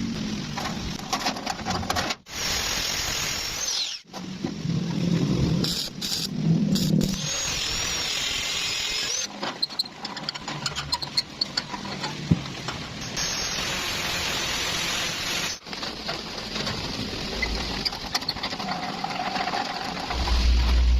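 Workshop power tools and machines running, in a series of short clips that cut abruptly from one to the next.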